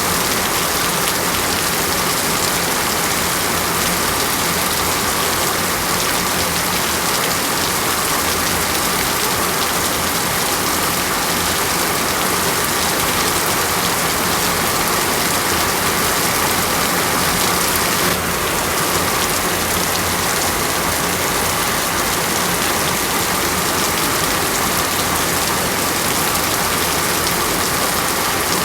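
Steady rain falling and pattering on surfaces, a dense, even hiss with no pauses.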